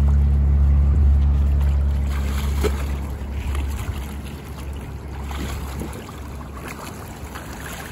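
A steady low machine hum that fades away after about three and a half seconds, with faint splashing from a swimmer's strokes in a pool.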